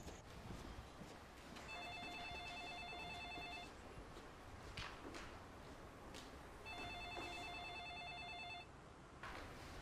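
Telephone ringing with a rapid electronic trill: two rings of about two seconds each, about three seconds apart.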